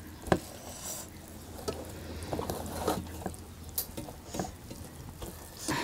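Fingers mixing and pressing rice and pork pieces on steel plates: soft squishing with scattered light clicks and taps, one sharper click just after the start.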